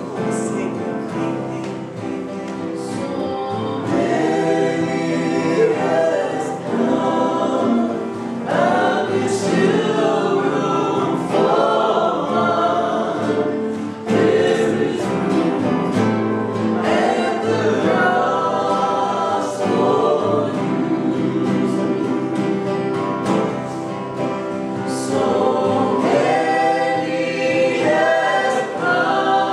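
Choir singing a gospel-style Christian worship song, with several voices held over sustained tones.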